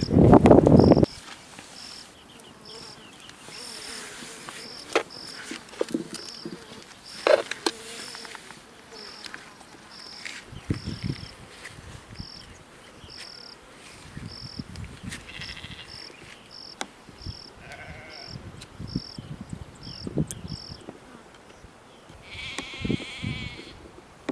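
An insect chirps over and over, a short high chirp a little more than once a second, among scattered clicks and knocks. A loud rustling noise cuts off about a second in, and a brief call is heard near the end.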